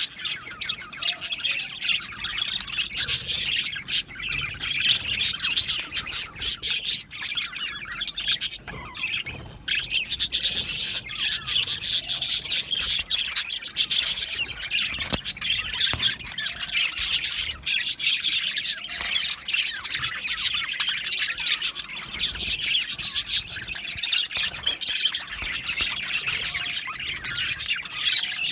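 A flock of budgerigars (budgies) chattering, with many chirps, warbles and squawks overlapping without a break.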